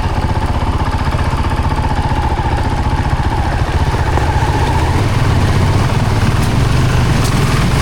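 Motorcycle engine running at low speed, steady and loud, picking up a little about five seconds in.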